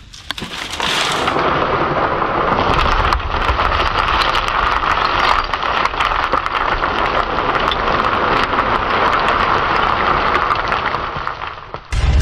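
A load of recycled stone hardcore being tipped off the edge, pouring and rattling down in one continuous rush that cuts off suddenly near the end.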